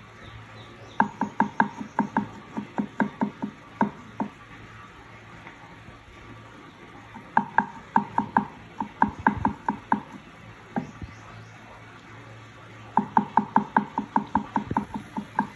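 Knife chopping green onions on a cutting board: three runs of quick knocks, about five a second, with short pauses between them.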